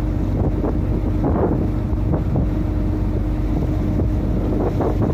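Boat engine running steadily underway, a constant low hum, with wind buffeting the microphone.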